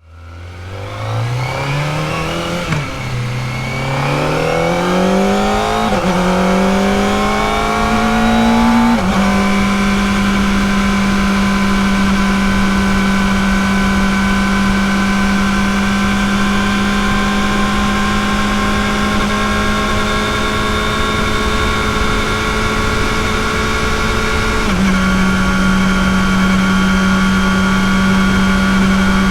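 Kawasaki ZX-4RR's 399 cc inline-four through its stock exhaust, pulling away and revving up through three quick upshifts, each a rising pitch that drops sharply at the shift. It then holds a steady high cruising pitch, stepping up slightly a few seconds before the end.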